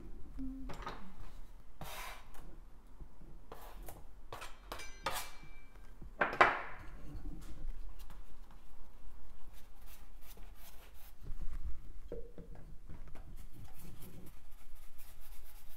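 Paintbrush strokes rubbing and scrubbing paint across a stretched canvas, with scattered clinks and knocks; the loudest is a sharp one about six seconds in.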